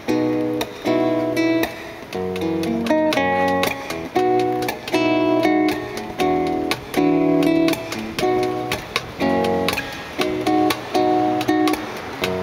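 Acoustic guitar strumming rhythm chords in a steady pattern, changing chord about every second: the instrumental intro before the singing comes in.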